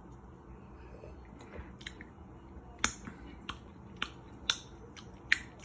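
Mouth clicks and lip smacks from tasting a sip of whiskey: about five sharp, short clicks spread over the second half, the loudest near the end.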